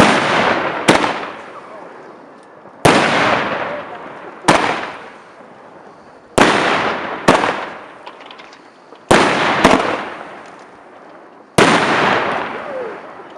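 Fireworks going off outdoors: about nine sharp bangs one to two seconds apart, several in close pairs, each trailing off over a second or two.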